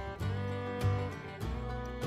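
Background music: a plucked guitar tune with a bass line and a steady beat.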